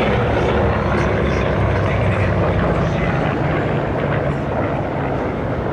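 Mitsubishi A6M Zero fighter flying overhead, its radial piston engine and propeller running with a steady low drone.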